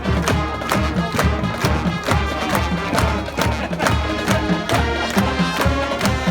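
High school marching band playing: brass over a steady drumline beat with a pulsing bass.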